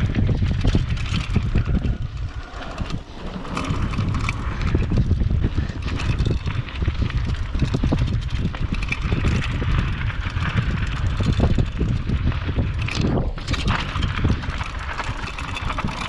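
Mountain bike riding fast down a gravel and dirt downhill trail: tyres crunching over gravel and stones, the bike rattling with many small knocks, and wind buffeting the microphone.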